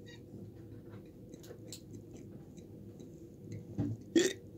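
A man laughing almost silently: faint breathy wheezes and small mouth clicks, with a louder burst of laughter about four seconds in.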